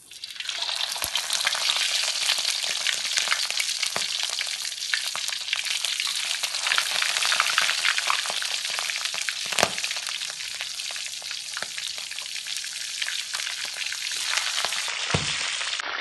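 Whole pigeons deep-frying in hot oil in a wok: a dense, steady sizzling and crackling, with a sharper pop here and there.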